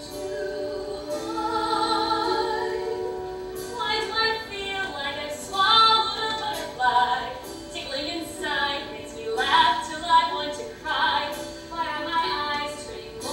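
Women singing a musical-theatre song over instrumental accompaniment, with longer held notes in the first few seconds and a moving melodic line from about four seconds in.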